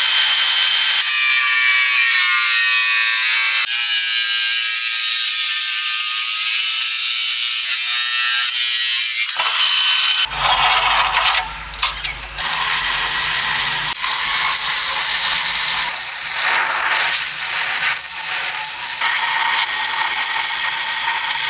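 Angle grinder cutting through a steel motorcycle mudguard, a high whine that shifts in pitch as the disc bites. About ten seconds in the sound changes to a rougher, steadier noise; by the end a stick welder is welding a repair piece into the mudguard.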